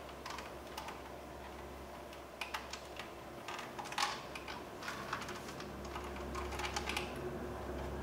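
Irregular light clicks and taps of hard plastic from a Toyota Camry power window master switch assembly being handled and put back together by hand.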